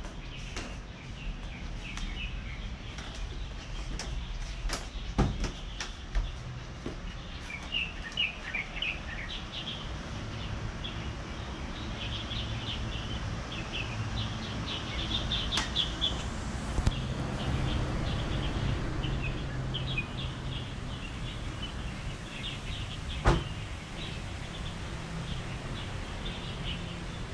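Small birds chirping in quick, repeated calls over a steady low rumble of distant traffic, with a couple of sharp knocks.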